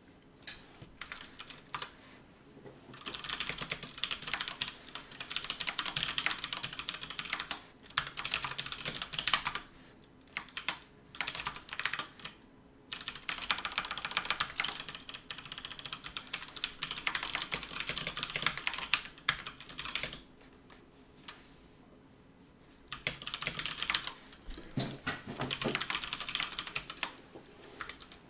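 Fast typing on a computer keyboard: runs of rapid keystrokes, three long ones, with short pauses between them.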